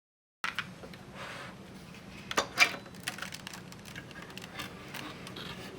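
Small clicks and taps of a screwdriver, screws and plastic-and-metal casing parts being handled while a car navigation unit is taken apart, with two sharper clicks a little before halfway.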